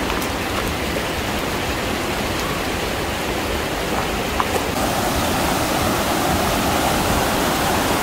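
Steady rushing of a rocky stream and waterfall.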